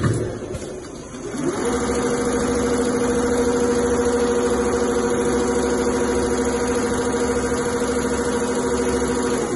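Two-head CNC leather sewing machine: a knock, then the sewing motors wind up in pitch about a second and a half in and run steadily at stitching speed with a fast, even needle rhythm, stopping right at the end.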